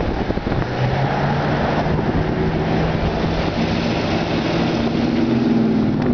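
A car engine running over a steady low rumble, its pitch rising a little and getting louder toward the end.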